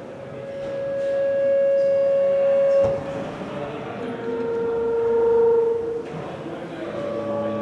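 Live electronic music: a held drone note for about three seconds, a lower held note a little later, and a chord of several sustained tones coming in near the end. A single sharp knock sounds about three seconds in.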